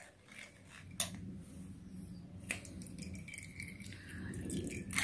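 Steel spoon scraping and tapping inside a steel strainer, pressing oil residue through into a glass jar, with a few sharp metal clicks. Under it, a low hum starts about a second in and swells near the end.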